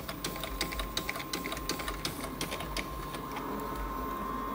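Inotec Scamax 6x1 production document scanner running a batch of small sheets: a fast run of sharp clicks over a steady high motor whine. The clicking stops about three seconds in while the whine keeps going.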